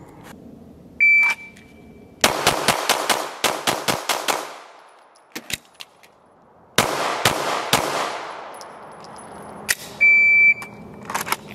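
Shot-timer start beep, then a red-dot handgun firing a fast string of about ten shots in two cadences, followed by a pause with the small clicks of a slide-lock reload and three more shots. A second timer beep sounds near the end.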